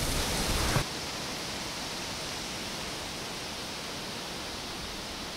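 Footsteps rustling through dry grass and fallen leaves, cut off abruptly less than a second in by a steady, even rushing hiss.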